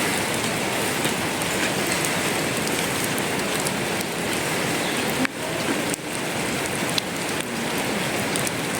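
Food frying in a pan, a steady sizzle that drops out briefly twice in the middle.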